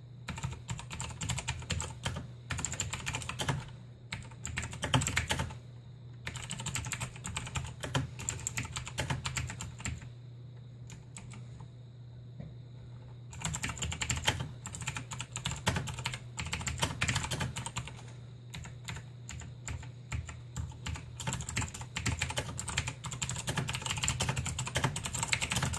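Razer BlackWidow Chroma mechanical keyboard with clicky Razer Green switches being typed on in fast runs of sharp clicks, with a pause of about three seconds partway through.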